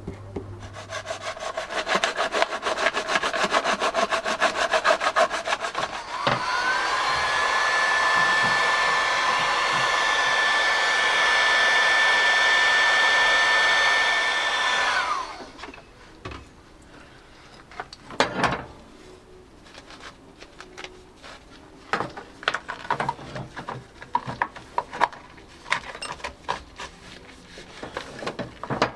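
Workshop work on a plastic bumper. About six seconds of rapid, rhythmic strokes, then a small electric motor whirs up to a steady high whine, runs for about nine seconds and winds down. Scattered clicks and rubbing from handling the parts follow.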